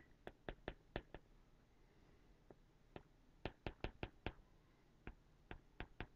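Stylus tip tapping and clicking on an iPad's glass screen while writing tick marks and small labels. Faint, sharp clicks come in quick runs: several at the start, another run around three to four seconds in, and a few more near the end.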